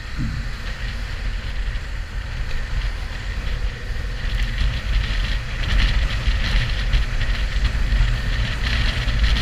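Wind rushing over a helmet-mounted microphone on a moving motorcycle, with the bike's engine running underneath as a low drone. It grows louder about halfway through.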